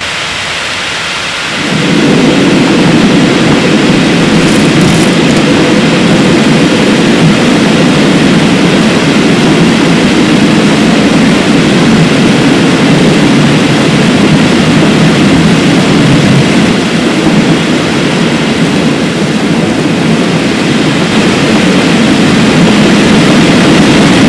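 Oil well blowout: a loud, steady rushing roar of gas and oil spraying up out of the wellhead. It jumps up about two seconds in and holds steady after that.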